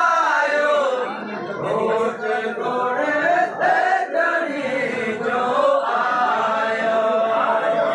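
Men's voices chanting or singing together without instruments, a slow wavering melody with a long held note in the second half.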